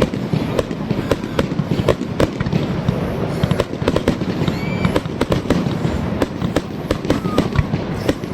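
Fireworks going off in quick, irregular succession: a dense run of bangs and crackles over a continuous rumble.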